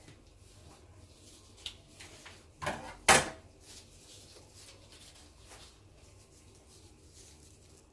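A kitchen knife knocking on the countertop as it is put down: a couple of light taps, then one loud clunk about three seconds in.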